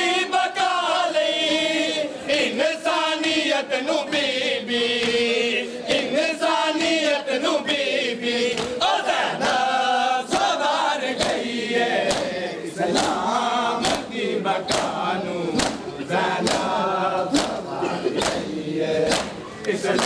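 Group of men chanting a noha in unison, with the sharp slaps of matam, palms striking chests, beating in time. The slaps settle into a steady beat of about three every two seconds from about halfway in.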